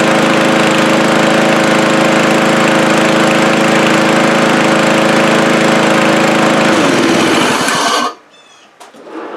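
Cub Cadet SC 500 HW push mower's 159cc IntelliPower single-cylinder engine running steadily at speed, running again after its carburetor was cleaned. About seven seconds in it is shut off and coasts down in pitch to a stop within a second.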